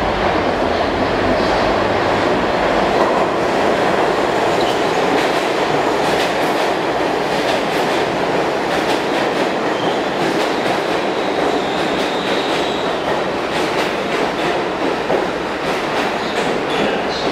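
R62 subway train pulling into a station: a steady loud rumble of steel wheels on rail, with repeated clickety-clack over the rail joints. The noise eases slightly toward the end, and a faint high squeal comes about two-thirds through.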